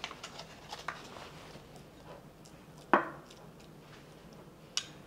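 Metal spoon stirring pickled mustard greens in a small ceramic bowl: soft scrapes and light clicks, then one sharp clink of spoon against bowl about three seconds in, with a brief ring, and a lighter click near the end.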